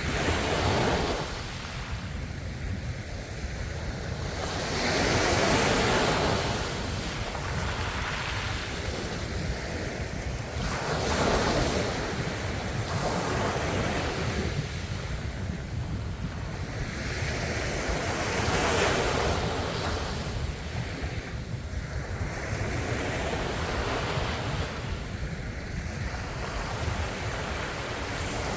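Ocean waves breaking and washing on the shore, swelling into a louder surge about every six seconds over a steady low rumble.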